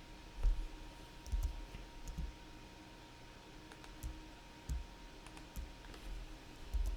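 Computer mouse and keyboard clicks, about eight at uneven intervals, each with a soft low thump, over a faint steady background hum.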